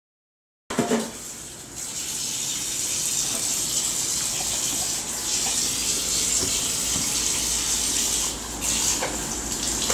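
Steady rushing hiss like running water, starting abruptly about a second in with a brief knock.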